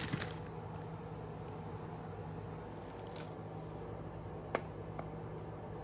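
A plastic bag of chopped salad crinkles briefly at the start as it is shaken over a taco. Then comes a low steady hum, with a short soft hiss and two sharp clicks while sauce is squeezed from a plastic squeeze bottle.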